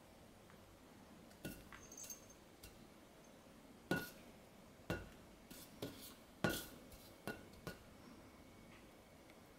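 A cat's paw swatting at a hanging latex balloon: an irregular run of sharp, light taps, about nine in all, the loudest about four and six and a half seconds in.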